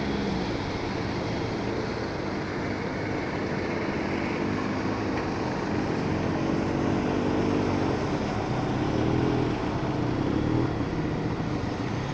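Snowmobile engines running close by, passing with their pitch rising and falling, over a steady noisy background.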